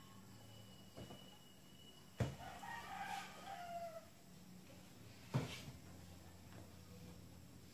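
A rooster crowing once, a pitched call of about two seconds that drops at the end, beginning a little over two seconds in. Two sharp knocks are louder, one just as the crow starts and another about three seconds later.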